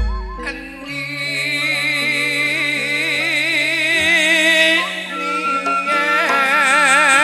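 Madurese gending music: long held notes with a wide vibrato, most likely sung, over a sustained low bass line. A low thump sounds at the very start.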